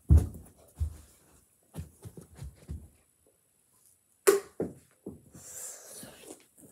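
Footsteps and thumps from a person moving close to the microphone, the heaviest thump right at the start, then one sharp knock about four seconds in, followed by a second of rustling.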